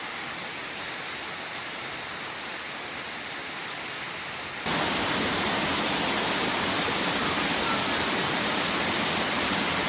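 Waterfall rushing, a steady even roar of falling water that jumps abruptly louder about five seconds in.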